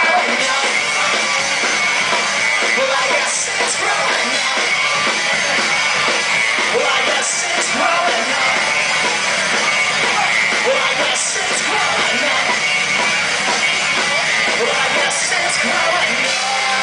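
Live rock band playing loud, electric guitar and drum kit, with a singer's voice over the top and a bright crash about every four seconds.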